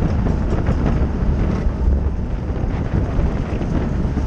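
Wind buffeting the microphone of a racing bicycle's onboard camera at speed: a steady, loud, low rumbling noise.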